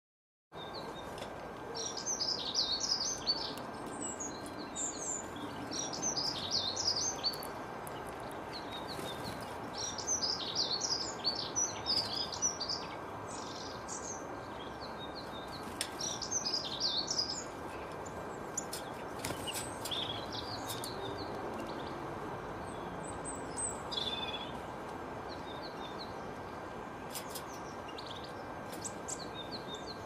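Small songbirds twittering in quick bursts of high chirps, a cluster every few seconds, over a steady hiss of background noise with a faint steady whine. The sound starts about half a second in.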